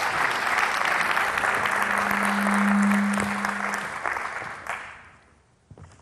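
An audience applauding, dying away about five seconds in. A low steady hum swells and fades in the middle of the applause, and a few small clicks follow near the end.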